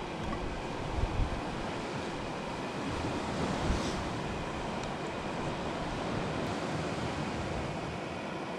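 Ocean surf washing steadily against the shore, with wind gusting on the microphone.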